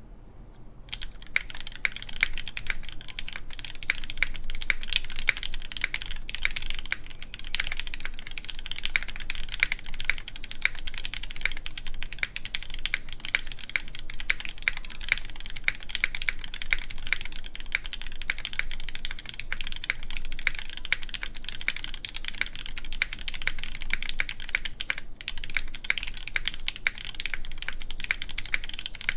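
Steady, fast typing on an iNN Studio Parabolica60 60% mechanical keyboard in tadpole pin mount, with lubed Gateron Red Ink linear switches, an aluminum plate and GMK keycaps. The typing starts about a second in.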